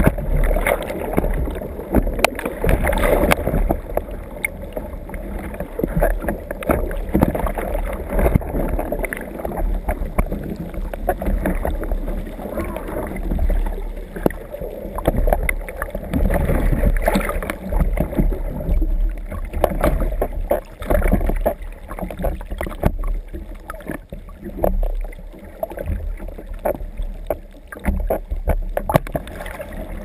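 Sea swell surging and churning inside a small sea cave, water splashing and sloshing hard right at the microphone, with many scattered knocks and bumps, as a capsized kayaker struggles in the water to hold and right his kayak.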